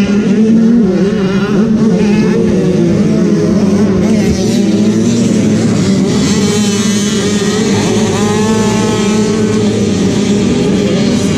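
Several small dirt bike engines idling and being revved at a start line, with engine pitch rising and falling over a few seconds about halfway through.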